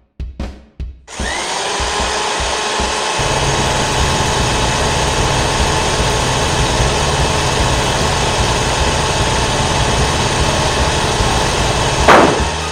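Cartoon drill sound effect: a steady grinding whir starts about a second in, over a low pulsing music beat, with a sudden louder burst near the end.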